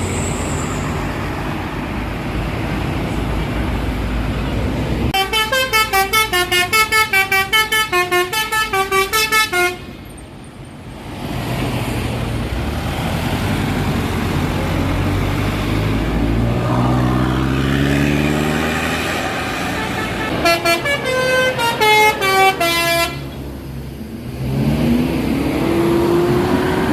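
Bus 'telolet' multi-tone horns playing a quick pulsing tune of stepped notes for about four seconds, and again more briefly about twenty seconds in, over the steady noise of passing traffic. Between and after the horn runs, a bus engine rises in pitch as it accelerates past.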